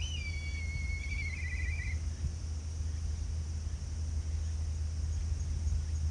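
Strong wind buffeting the microphone as a steady low rumble. In the first two seconds a bird whistles one held note that breaks into a quick warbling trill.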